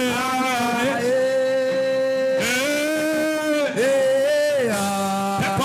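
A man singing long, held notes in a wordless prophetic chant, each note lasting a second or two. The pitch steps up about halfway through, then settles lower near the end.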